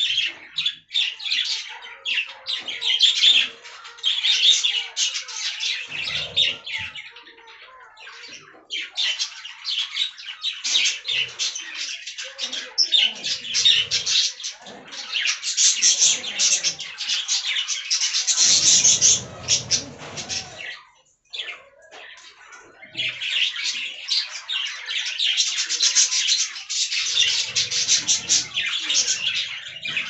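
A flock of budgerigars chattering, with rapid high chirps and squawks from many birds at once, dropping off briefly twice.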